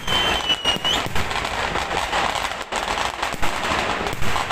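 Fireworks display: a dense, continuous barrage of firecracker bangs and crackling from bursting aerial shells. A high, steady whistle sounds over it during the first second.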